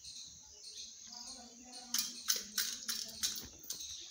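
Peacock's beak pecking in a small steel bowl: a run of sharp clicks starting about two seconds in, over a steady high hiss.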